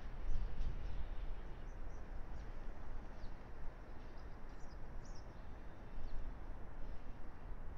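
Steady low rumble and hiss of outdoor ambience, with a few faint, short bird chirps scattered through it.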